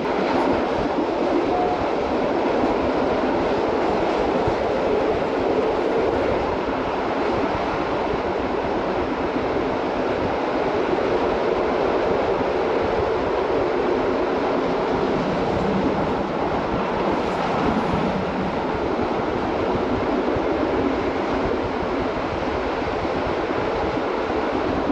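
Metre-gauge GoldenPass Line (MOB) train running along the track: a steady rumble of wheels on rails.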